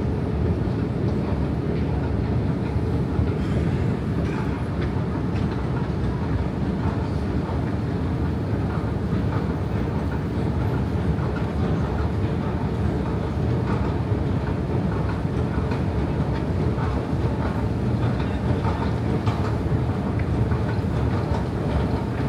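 Escalator running, heard from on its steps: a steady low mechanical rumble with a light clatter of many small clicks.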